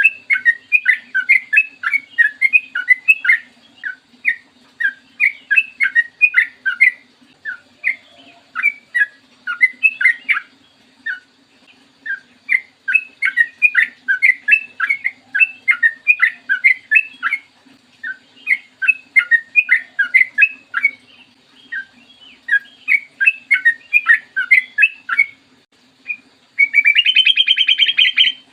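Yellow-vented bulbul (trucukan) singing vigorously, with phrases of quick chattering notes a few seconds long and short pauses between them. Near the end comes a harsh, buzzy rattle lasting over a second.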